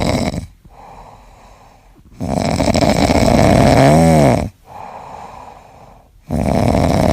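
Loud, rasping snoring in a slow rhythm: long harsh breaths about every four seconds, alternating with quieter ones. A short whistling tone rises and falls near the end of the middle snore.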